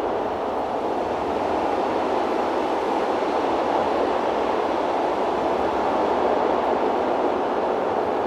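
Steady rushing noise of an FPV cinewhoop drone's propellers in flight, flying into strong wind. The noise holds an even level throughout, with no clear whine or pitch changes.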